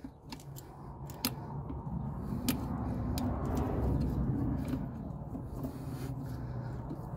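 Screwdriver tightening a hose clamp on an ATV carburetor's intake boot, with a few sharp metallic clicks. Under them a low rumble swells and fades around the middle.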